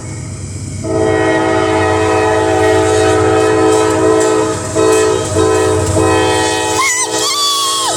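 Diesel locomotive's multi-chime air horn blowing a long, loud held chord from about a second in, with a few brief dips in the middle, over the low rumble of the train.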